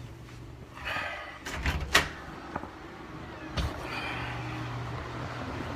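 A door being handled and shut, with a cluster of knocks and a sharp bang about two seconds in, and another thump about three and a half seconds in.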